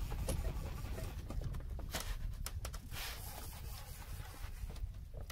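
Steady low wind rumble on an open boat, with a few sharp knocks and clicks about two seconds in as a fishing rod is pulled out of its rail rod holder.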